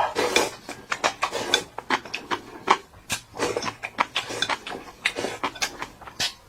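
Close-up eating sounds: irregular chewing, smacking and small clicks in a rapid, uneven run.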